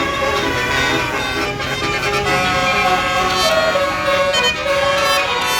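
Bus basuri telolet horn, a multi-tone air horn, playing a melody of held notes that step from pitch to pitch.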